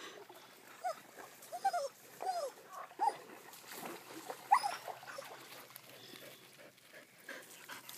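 A dog giving short, high, whining yips in excited play, a handful in the first five seconds, the loudest about four and a half seconds in.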